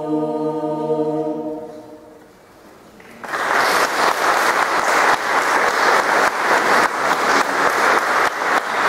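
A mixed chamber choir holds its final chord, which fades away in the reverberant church. About three seconds in, audience applause breaks out and continues.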